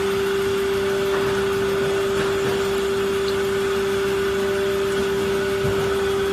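Haijiang 530-ton injection molding machine running mid-cycle with the PET preform mold clamped shut: a loud, steady machine hum with one strong unchanging tone over a hiss.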